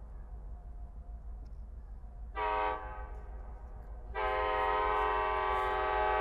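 Nathan K5LA five-chime air horn on Delmarva Central Railroad GP38-2 #2501, sounding a short blast about two and a half seconds in, then a long blast starting about four seconds in. A low steady rumble lies underneath.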